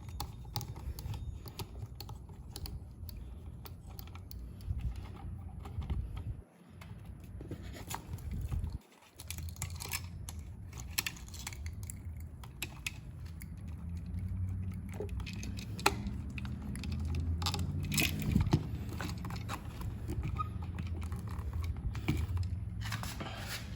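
Small clicks, taps and rattles of a screwdriver and a GFCI outlet being handled as the outlet is unscrewed from its wall box, with a low hum underneath. The sound drops out briefly twice.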